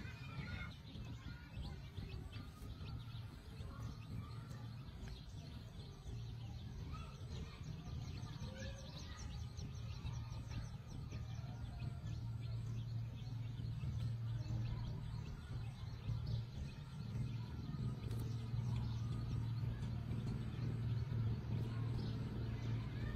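Outdoor rural ambience: small birds chirping and trilling over a steady low hum that grows stronger about halfway through.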